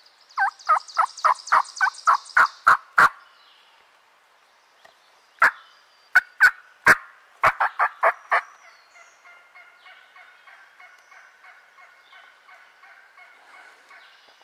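Turkey yelping: a loud series of about ten sharp yelps right at the start, a second series of about nine yelps some five seconds in, then a fainter, quicker run of notes.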